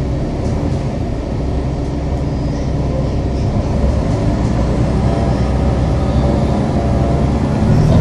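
City bus engine running and the bus body rumbling, heard from inside the passenger cabin. It grows louder about halfway through as the bus speeds up.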